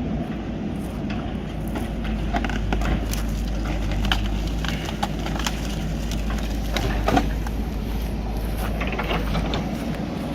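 JCB backhoe loader's diesel engine running with a steady low rumble, with many irregular sharp knocks and clanks over it.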